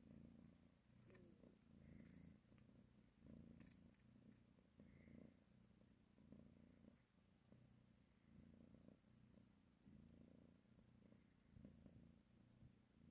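Faint cat purring, a low rumble that swells and fades in steady pulses with each breath, about one every second or so, with a few small clicks.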